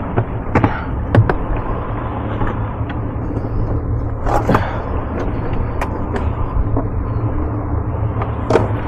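Steady low rumble of the boat's twin Mercury outboard engines running at trolling speed, with wash from the sea. A few sharp knocks come about a second in, a louder cluster mid-way, and one more near the end.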